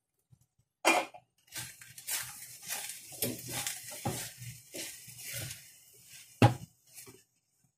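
Spatula scraping and stirring food around a frying pan, in irregular strokes, with a sharp knock of the spatula against the pan about a second in and a louder one near the end.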